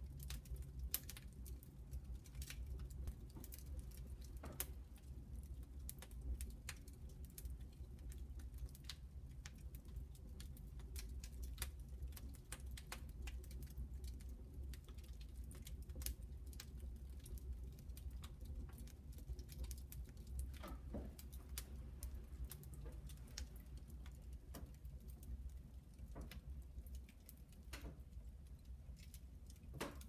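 Wood fire burning in the firebox of a brick beehive oven, crackling with irregular sharp pops over a low steady rumble.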